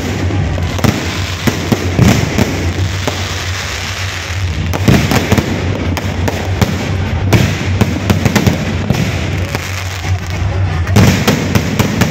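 Fireworks going off: a dense, irregular run of bangs and crackles, with sharper clusters of them about two seconds in, around five seconds in and near the end.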